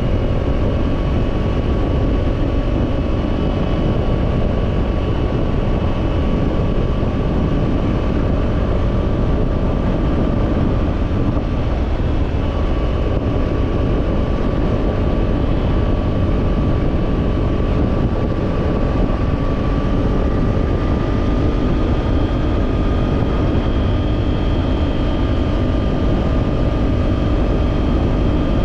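Kawasaki parallel-twin sport motorcycle running at a steady cruise under light throttle. The engine note holds nearly constant and rises slightly about two-thirds of the way through.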